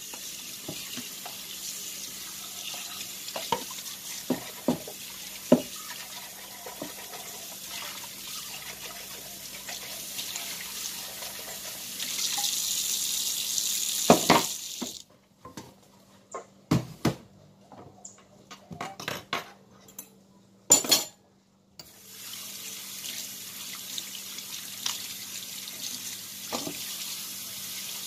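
Kitchen tap running into a metal sink, with knocks and clinks of dishes being handled. About halfway through the water is shut off for several seconds of separate knocks and clatter, then it runs again near the end.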